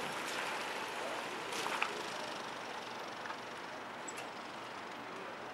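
City street ambience: a steady hiss of traffic, slowly fading, with a few faint clicks.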